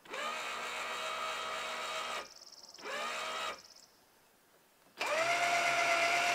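The truck camper's jacks being run up by an electric motor, whining up to speed in three runs: a long one, a short one about three seconds in, and a louder one near the end. This is the camper being raised on its jacks.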